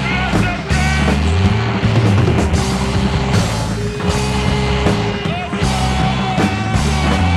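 Abstract noise rock music: a dense, bass-heavy band sound. It has sliding high notes in the first second, then a long held note through the rest.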